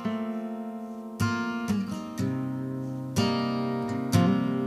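Intro background music: an acoustic guitar strumming and picking chords, each new chord struck sharply about every half second to a second.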